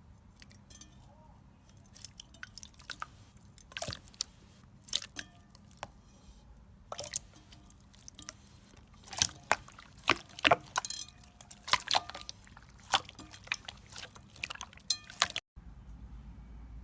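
Slime being squeezed and pressed, making irregular wet clicks and sticky pops that come thicker and louder in the second half. A brief cut near the end gives way to a steady low hum.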